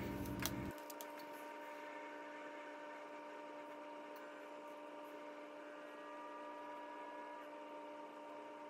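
A faint steady hum made of several held tones, with a few faint clicks.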